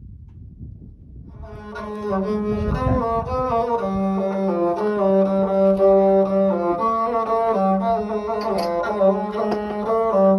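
Instrumental background music fading in about a second and a half in: a stepwise string melody over a steady low drone note.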